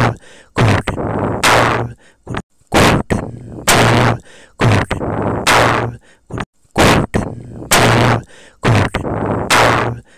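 Loud, repeated bang-like sound effects with noisy fading tails, coming in pairs, a short hit then a longer one, about every two seconds.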